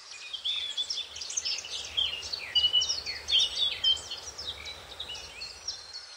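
Several small birds chirping and whistling together, with quick overlapping calls and short falling notes, over a faint low hum.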